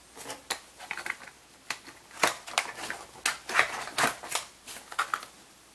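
Hands rummaging through packaging in a cardboard box, a quick run of irregular crinkles, crackles and taps from paper, cardboard and plastic being handled.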